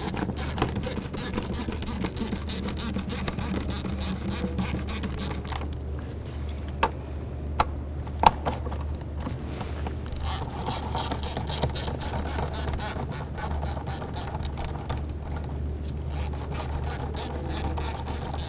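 Ratchet with an 8 mm socket clicking in fast runs as it loosens the worm-gear hose clamps on the engine's air intake tube, with a few sharper single clicks partway through.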